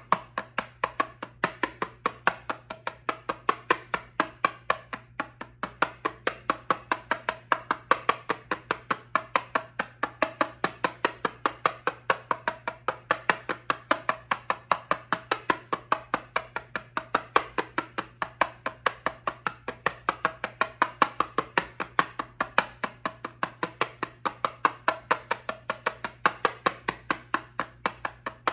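Fingernails tapping on a plastic eyeshadow palette: rapid, steady taps, about four or five a second.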